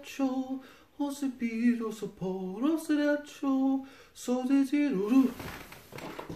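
A man's wordless voice holding drawn-out pitched notes, with one upward slide about halfway through. It stops about five seconds in, leaving a faint hiss.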